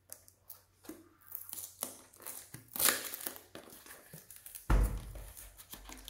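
Cardboard fan box and plastic packaging being handled: crinkling and rustling with scattered light clicks, a louder rustle about three seconds in, and a dull thump a little before five seconds.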